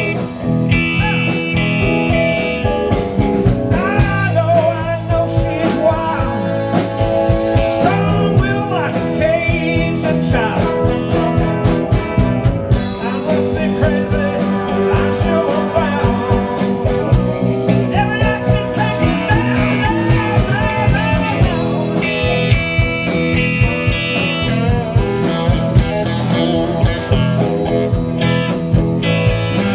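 Live blues-rock band playing: electric guitar, electric bass, drum kit and electronic keyboard, with a steady drum beat throughout.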